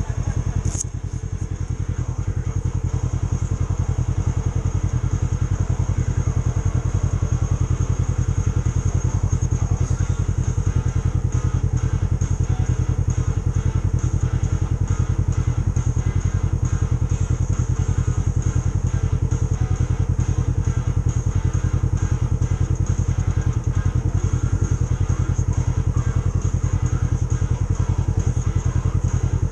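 Side-by-side UTV engine idling steadily, heard from the driver's seat, with a thin steady high whine above it.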